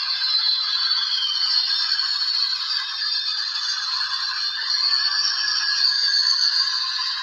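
Airbus A320-232 on its landing flare, its IAE V2500 turbofans and airflow heard as a steady hissing rush with a faint whine and almost no low rumble.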